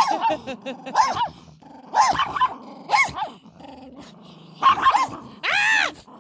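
An angry puppy barks and growls at close range, a sharp bark about once a second with a low growl between. Near the end comes one longer, drawn-out bark. It is defensive, warning-off barking from a cornered puppy showing its teeth.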